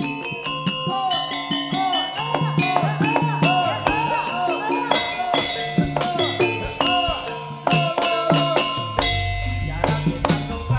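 Javanese gamelan ensemble playing jaranan dance music: struck metal keys and drum strokes in a steady rhythm, with a repeated short gliding melodic figure. A deep low note comes in about nine seconds in.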